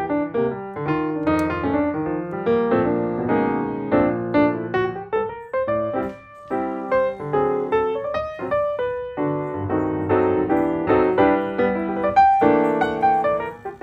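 Piano music, a run of many notes played one after another without a break.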